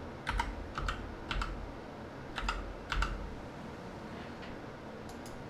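Computer keyboard keys being tapped: a handful of sharp clicks in quick pairs over the first three seconds, then two faint taps near the end.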